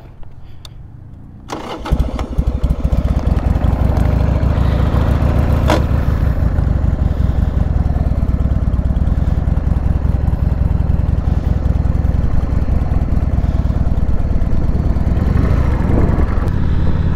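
Harley-Davidson Sportster's V-twin engine starting about two seconds in, then running steadily as the motorcycle rides off.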